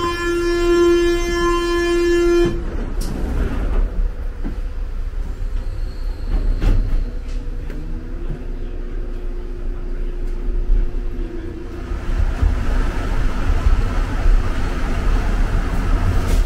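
Mexico City Metro train: a steady door-warning tone sounds, then cuts off abruptly with a knock about two and a half seconds in. The car then rumbles along, with a faint whine slowly rising in pitch from about eight seconds in as the train gathers speed.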